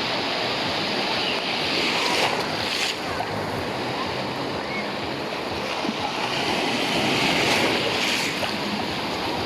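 Black Sea surf: small waves breaking and washing onto the shore in a steady hiss, with two louder breaks, about two seconds in and again about seven seconds in.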